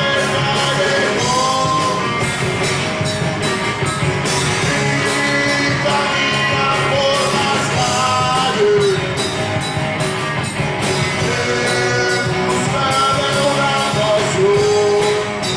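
Rock band playing a rock and roll song with a blues mix in the Argentine 'rolinga' style, a voice singing over the band.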